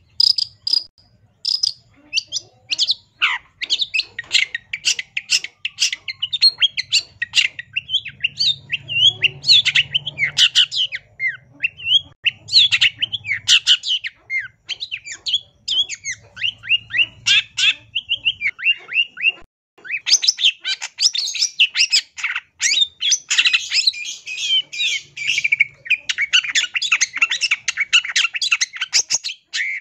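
Long-tailed shrike singing a fast, unbroken chattering song of quick varied notes, the 'gacor' song used as a masteran, said to be full of phrases copied from other birds (isian). It pauses briefly about two-thirds through, then comes back denser.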